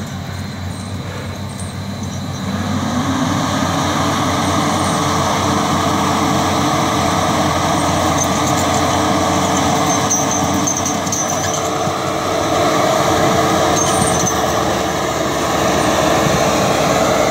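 John Deere rubber-tired skidder's diesel engine running. It gets louder about two and a half seconds in and stays loud as the machine drives up the slope.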